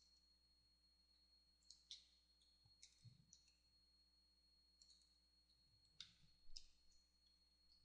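Near silence with a few faint, scattered clicks of a computer mouse and keyboard being worked, the loudest a little before the end.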